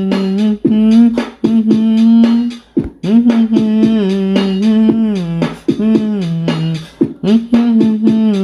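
Music: a wordless vocal melody held on long, gliding notes over a quick clicking beat, in phrases with short breaks between them.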